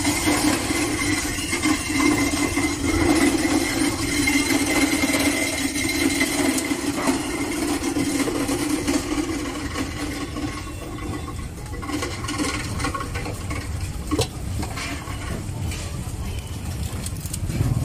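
A small engine running steadily amid street noise, fading out about ten seconds in; a single sharp knock about fourteen seconds in.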